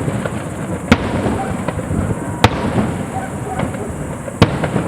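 Fireworks display: aerial shells bursting with three sharp bangs, spaced about a second and a half to two seconds apart, over a steady crackle of smaller pops.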